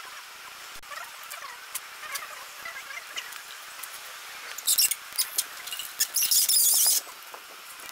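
Metal squeaks and light clicks as the roaster's steel receiver tubes are handled in their round end plate, then about six seconds in a loud, high scraping hiss lasting about a second.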